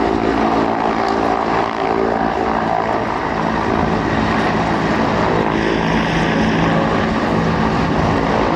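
Mi-24 attack helicopters flying past in a pair: a steady, loud mix of turbine whine and rotor noise.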